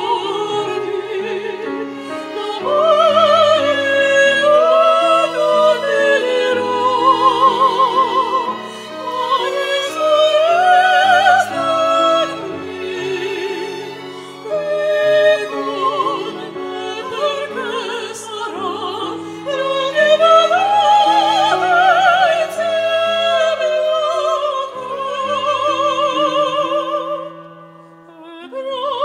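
Mezzo-soprano voice singing an operatic melody with wide vibrato over a violin ensemble and piano. The music briefly falls away near the end.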